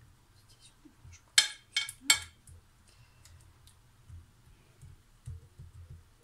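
A kitchen utensil knocking and scraping against a dish as sauce is spread over food, with three sharp clatters close together about one and a half to two seconds in and light clicks around them.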